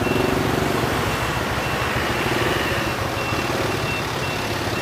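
Motor vehicle engine running in city traffic, with a short high electronic beep repeating about twice a second.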